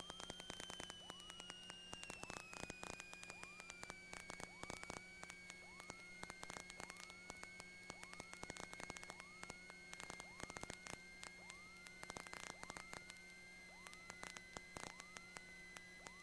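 Faint electrical noise on a light aircraft's intercom audio: a thin whine that slowly falls in pitch over the first few seconds, a short rising chirp repeating about once a second, a low hum and scattered crackling clicks.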